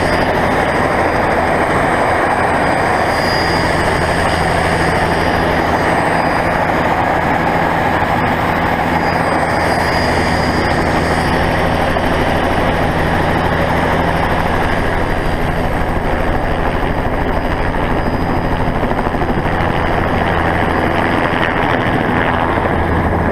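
Helicopter running steadily: a loud, unchanging noise with a low steady hum underneath.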